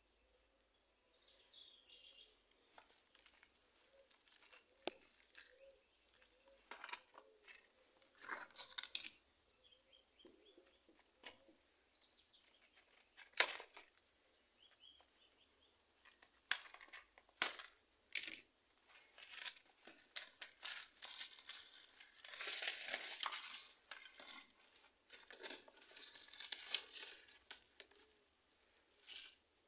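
Paper casing of a firework rocket being cut open with scissors and pulled apart by hand: on-and-off crinkling and tearing of paper with scattered sharp clicks, the loudest click about halfway through.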